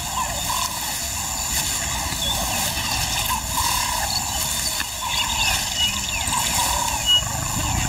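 A lioness raking dry earth with her forepaws, scraping soil over the stomach of her kill to bury it. Under it runs a steady low rumble, with short high chirps scattered through it and one sharper scrape about seven seconds in.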